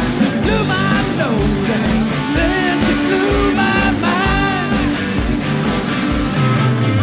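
Live band music: a man singing over strummed acoustic guitar and electric bass guitar, with a steady rhythm.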